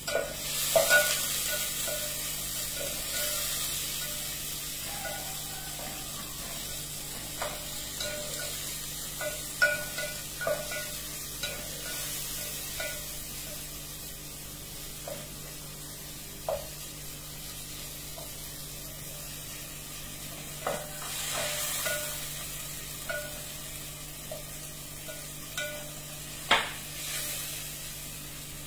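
Onions sizzling in hot oil in a metal pot, stirred with a wooden spatula that knocks and scrapes against the pot every second or two. The sizzle swells now and then as the onions are turned.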